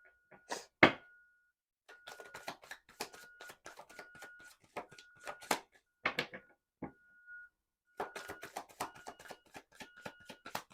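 Tarot cards being shuffled by hand: two runs of rapid, crisp flicking clicks, after a couple of louder knocks near the start.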